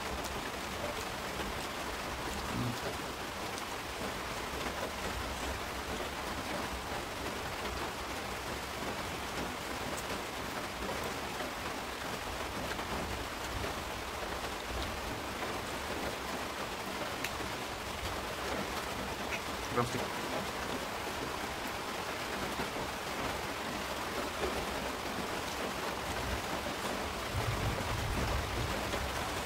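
Steady rain falling, an even hiss throughout, with a few small clicks and one sharp tick about twenty seconds in.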